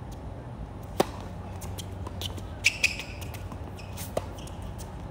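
Singles tennis rally on a hard court: the racket strikes the ball on a serve about a second in, and again on a groundstroke about four seconds in. Just under three seconds in there are two sharp, high-pitched clicks close together.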